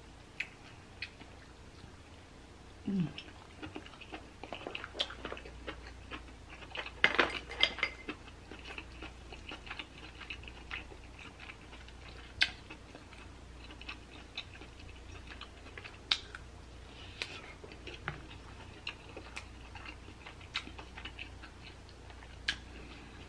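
Close-miked chewing and wet mouth sounds of someone eating king crab meat, with scattered sharp clicks and a dense burst of crackling about seven seconds in. A wooden spoon taps and scrapes against the food and dishes.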